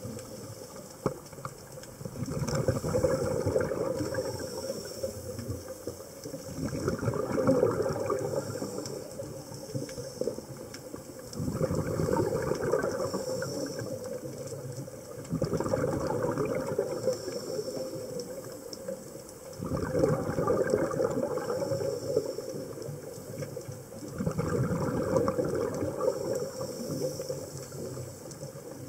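Scuba diver's exhaled breath bubbling out of the regulator, heard underwater: a rushing, bubbling burst of two to three seconds, repeated six times about every four and a half seconds.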